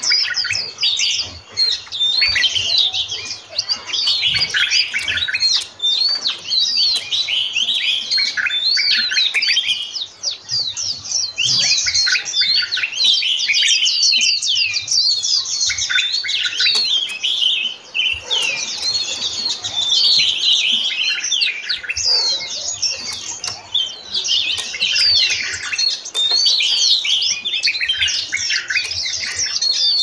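A mixed group of caged songbirds in an aviary chirping and calling together without pause: many quick, high, overlapping notes and short whistled sweeps.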